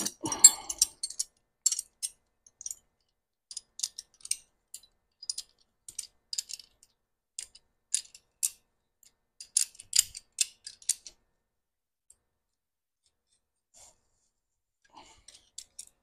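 Light metallic clicks and ticks of two 14 mm wrenches working a bolt and self-locking nut on a steel linkage bracket, tightening it up. The clicks come irregularly for about eleven seconds, stop for a few seconds, and return faintly near the end.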